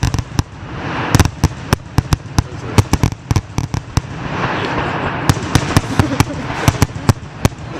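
Fireworks going off in rapid succession: dozens of sharp bangs and crackles, several a second, over a steady hissing wash and low rumble.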